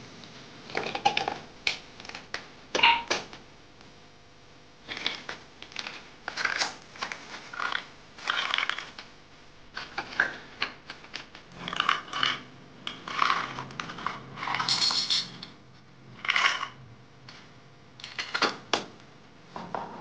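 Irregular clicks, taps and short rattles of hands handling a plastic toy washing machine. The round door is pushed shut and latched, and a small toy detergent box is handled over the top of the machine.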